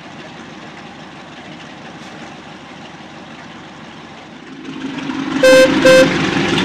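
A locomotive's low running rumble swells up, then its whistle gives two short toots about half a second apart.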